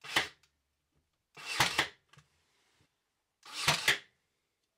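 Ryobi AirStrike cordless brad nailer firing three brad nails into pine blocks, three sharp shots about two seconds apart, the last two with a short build-up before the snap.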